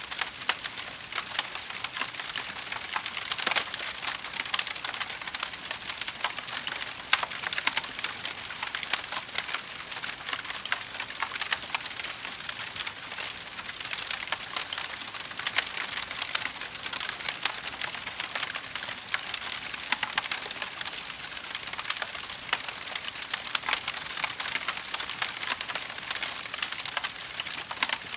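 Fire crackling steadily, a dense run of small sharp pops and snaps with no let-up.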